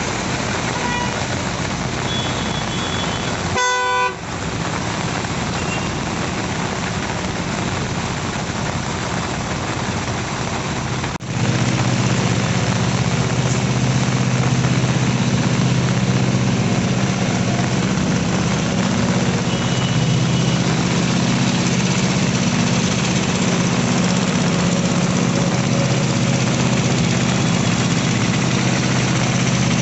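Road traffic on a rain-soaked, flooded road: a steady hiss of rain and tyres in water, with engines running. A vehicle horn honks once, briefly, about four seconds in. After a cut about eleven seconds in, a louder, steady low engine hum takes over.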